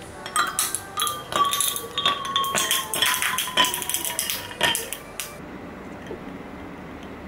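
Ice cubes dropped one after another into a glass of iced americano, clinking against the glass, which rings between the hits. The clinking stops about five seconds in.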